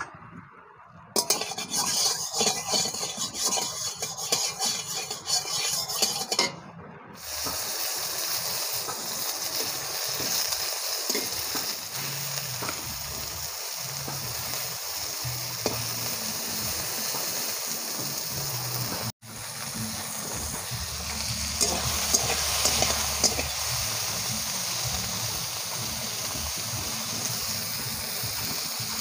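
Slices of aubergine frying in hot oil in a kadai, with a spatula moving them about: loud crackling for the first several seconds, then a steady sizzle. After a brief break about two-thirds of the way through, prawns sizzle in the oil of the same pan.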